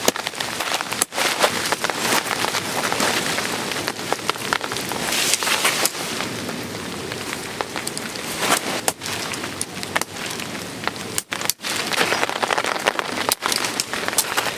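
Heavy rain falling in a storm: a dense, steady hiss full of sharp individual drop hits, briefly cutting out about a second in and twice near the end.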